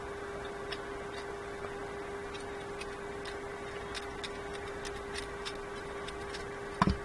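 Faint, irregular small metal clicks, about two a second, of a screwdriver working a small screw out of a ratchet head, with one louder knock near the end.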